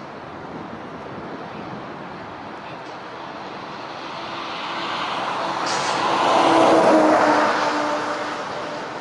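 Steady road traffic noise, with one vehicle passing close: it grows louder to a peak about seven seconds in, then fades.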